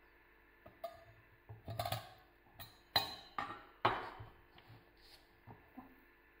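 Irregular clinks and knocks of a glass baking dish and a metal fork handled on a countertop, about a dozen over six seconds, the loudest few with a short ringing.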